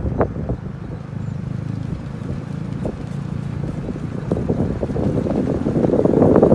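Driving noise of a 2005 Mini Cooper S JCW: a steady low road and drivetrain hum with scattered light knocks, growing louder from about four seconds in as the car picks up speed.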